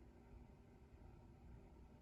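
Near silence: faint steady low room hum.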